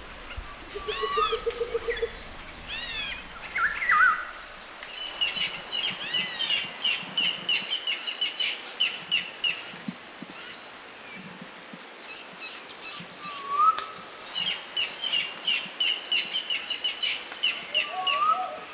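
Wild birds singing: repeated arching chirps and fast runs of short, evenly spaced notes, twice in long bursts, with a lower swooping call that comes back three times.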